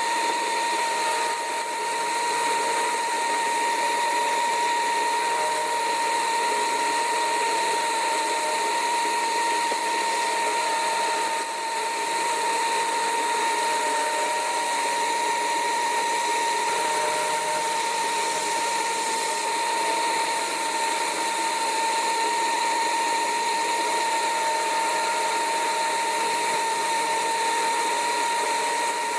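CNC milling machine running steadily, its end mill cutting an aluminium pocket, with a constant high whine over the noise of the cut.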